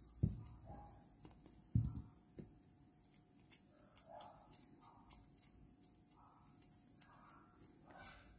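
Two dull thumps, one just after the start and one near two seconds in, followed by faint short sounds that are hard to make out.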